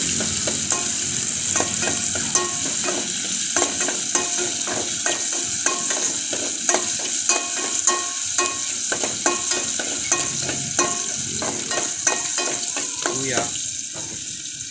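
Sliced ginger sizzling in hot oil in a metal pot, while a metal ladle stirs it and knocks against the pot again and again, each knock ringing briefly.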